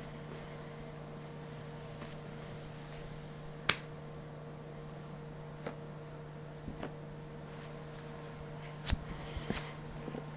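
Steady electrical hum of room tone, broken by one sharp click about a third of the way in and a few softer clicks and knocks in the second half.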